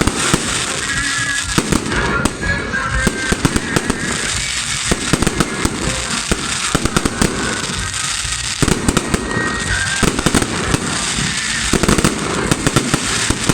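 Fireworks salute: a dense, continuous barrage of bangs and crackling bursts, many overlapping.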